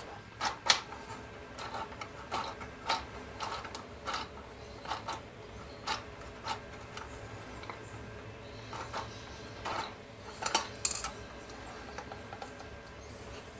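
Light plastic clicks and rattles from a 1/35 scale model tank's individual plastic track links and road wheels being pushed round by hand; the track works. The clicks come irregularly, the sharpest about a second in and another near the end.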